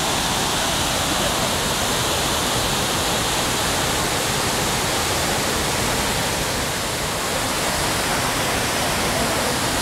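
Abbey Falls, a wide waterfall swollen by the monsoon, pouring over rock: a steady, even rush of falling water.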